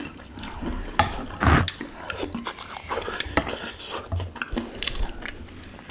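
Metal fork and wooden utensils scraping and clicking in a glass dish of soup with noodles. The clicks are scattered and irregular, with one louder knock about a second and a half in.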